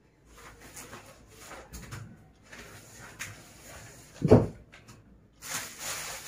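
Rustling and knocking of blankets and bedding being stowed in a cupboard, with one loud thump a little over four seconds in.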